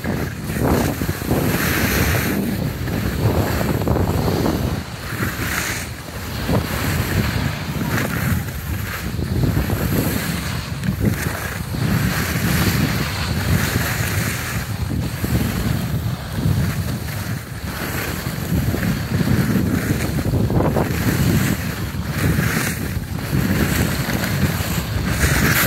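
Wind buffeting the microphone of a camera carried by a skier moving downhill, a steady low rumble. A hiss of skis on packed snow swells every few seconds.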